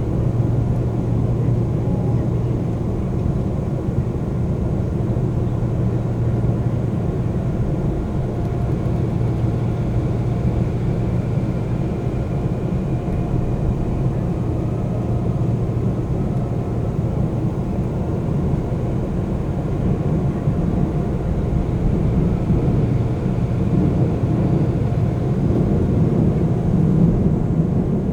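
Seoul subway train running between stations, heard from inside the carriage: a steady low rumble of wheels and running gear. Faint higher tones come and go, and the rumble swells slightly near the end.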